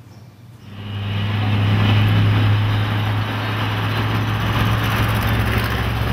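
An open-sided off-road vehicle being driven, its sound cutting in suddenly about a second in: a steady low engine drone under a loud rushing noise.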